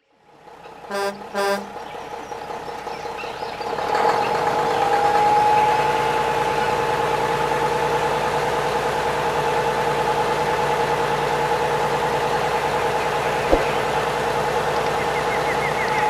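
A vehicle horn honks twice, short and quick, about a second in. Then a steady engine-like drone with a wavering pitch takes over and gets louder about four seconds in, with a single sharp click near the end.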